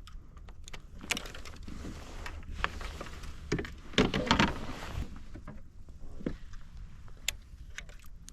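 Scattered clicks and knocks of gear being handled aboard a kayak, with a busier, louder stretch of rattling and knocking about four seconds in, over a steady low rumble.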